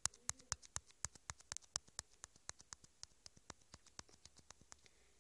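A rapid run of faint, sharp clicks, about six or seven a second, slowly fading and stopping shortly before the end.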